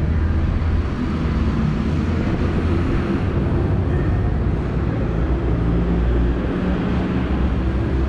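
Steady low background rumble with a continuous hiss over it, of the kind traffic or machinery makes.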